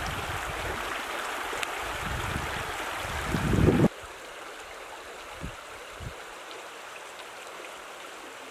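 Shallow river water running over rocks, a steady rushing. For the first few seconds wind buffets the microphone, swelling strongly just before an abrupt cut to a quieter, even flow.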